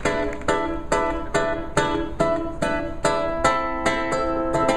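Strummed acoustic string instrument playing chords in a steady rhythm, about two and a half strums a second: the instrumental intro of a song before the singing comes in.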